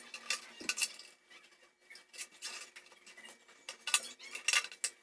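Light metallic clicks and clinks at irregular intervals, from hand work on a circuit breaker panel while breakers are being fitted.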